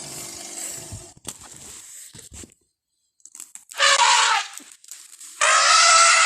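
Elephant calls: two loud, harsh calls with a raspy, pitched edge, the second longer, following a brief silence and some soft scuffling noises.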